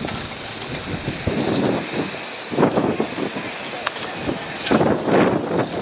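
Aerosol spray-paint cans hissing steadily as paint is sprayed onto a board, with a few louder irregular noisy bursts about two and a half and five seconds in.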